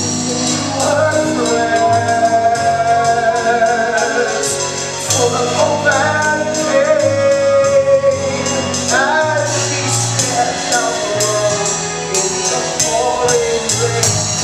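Cast singing a musical-theatre number with a live pit band, a drum kit's cymbals keeping a steady beat under a wavering sung melody.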